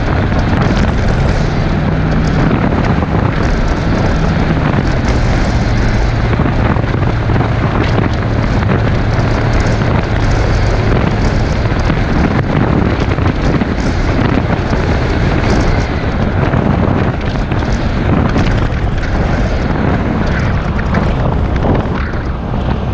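Wind buffeting the microphone of a hood-mounted action camera on a moving pickup truck, over steady road and engine noise. A low engine hum drops in pitch about five seconds in.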